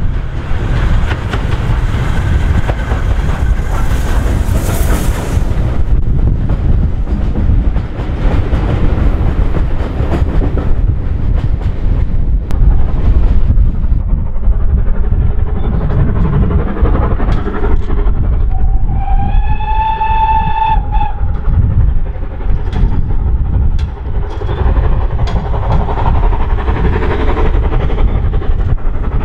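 Steam locomotive working a train, a heavy low rumble with wind on the microphone. About two-thirds of the way through, a steam whistle gives one steady blast of about two seconds, as the ex-GWR 15xx class pannier tank 1501 approaches.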